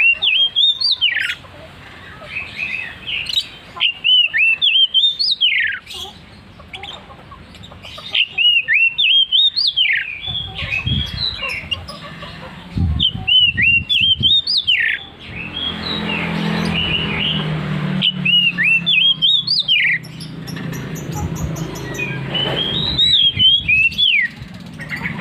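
Oriental magpie-robin (kacer) singing loudly in repeated phrases of rising and falling whistled notes, about one phrase every four seconds.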